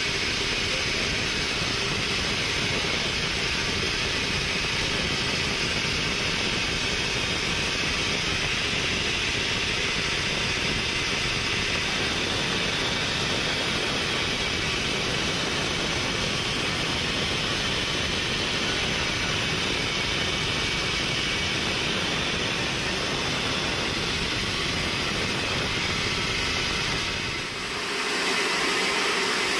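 Horizontal band sawmill running and cutting through a large log: a steady, loud mechanical noise. Near the end it dips briefly, then carries on without its low rumble.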